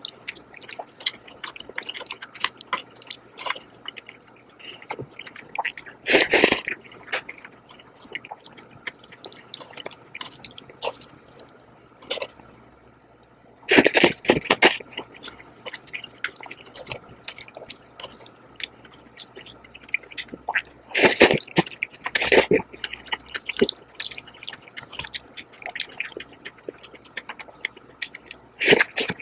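Close-miked mouth sounds of eating jjajang noodles: steady wet chewing and smacking clicks, broken by four loud noodle slurps spaced several seconds apart.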